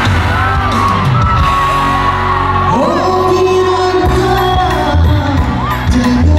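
Live dangdut concert: a male singer's voice over the band, with ornamented runs and one long held note in the middle, and the audience whooping.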